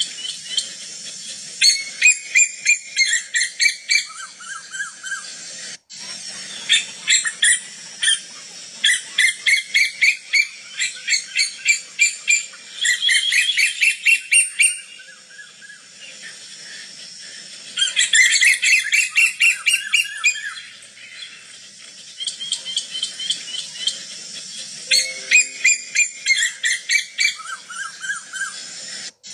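Female koel calling: runs of rapid, shrill, repeated notes, each run lasting two or three seconds with short pauses between, some runs falling in pitch toward their end. The sound cuts out briefly about six seconds in and again near the end.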